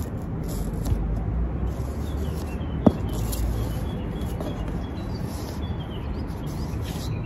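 Wind noise on the microphone, with faint bird chirps and a single sharp click about three seconds in.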